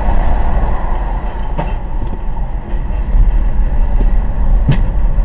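Road and engine noise heard inside a moving car's cabin: a steady low rumble, with a sharp knock about one and a half seconds in and a louder one near the end.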